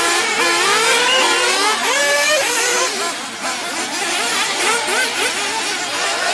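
Several radio-controlled off-road buggies racing, their small engines revving up and down at different pitches at once as they accelerate and brake around the track.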